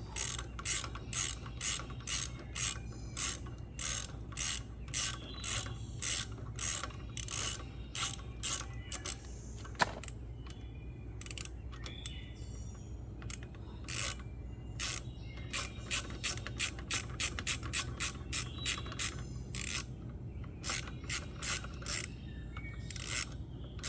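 Hand ratchet wrench clicking in steady runs of about two to three clicks a second while turning a mounting bolt, pausing twice and picking up again.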